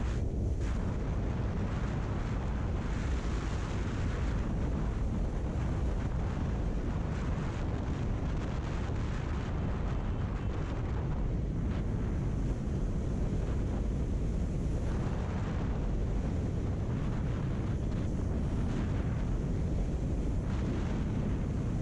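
Steady wind rumble on the microphone of a camera mounted on a motorcycle cruising at about 100 km/h, with the bike running underneath.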